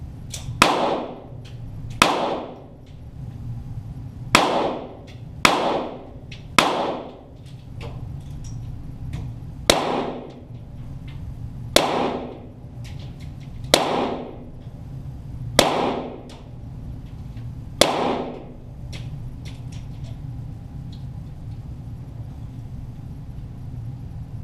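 .22 Walther GSP target pistols firing ten shots at an uneven pace, one to two seconds apart, each a sharp crack with a short echoing tail. The shots stop about three quarters of the way through, leaving a low steady background hum.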